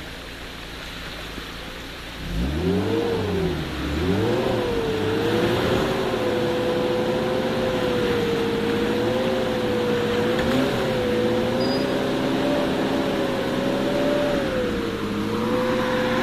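Rushing stream water, then about two seconds in an off-road 4x4's engine revs up and down twice and is held at high revs, its pitch wavering slightly, to the end.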